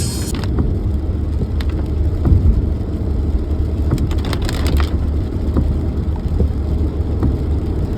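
Low rumble of a car on the road, heard from inside the cabin, with scattered light clicks and rattles, a cluster of them about four seconds in.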